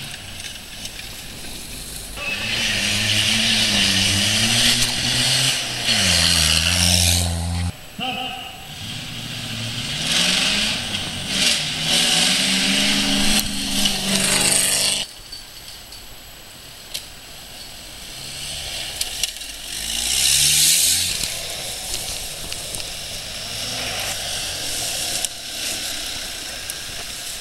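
Off-road 4x4 engines revving hard, their pitch climbing and falling in several loud passages. Two of these break off abruptly, about eight and fifteen seconds in, followed by a quieter stretch with another rev-up.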